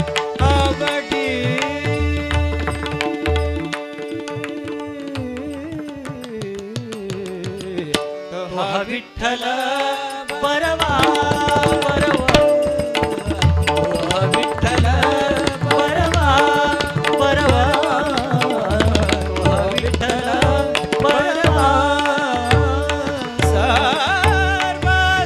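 Live Marathi abhang: a male singer holding and bending long melodic notes over a steady harmonium drone, with tabla and pakhawaj strokes and small hand cymbals. The drums drop out for a few seconds, then from about ten seconds in the full ensemble returns and the music gets louder.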